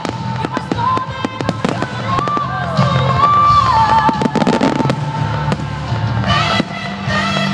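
Fireworks display finale: rapid crackling and repeated bangs of bursting shells over music played loud for the show.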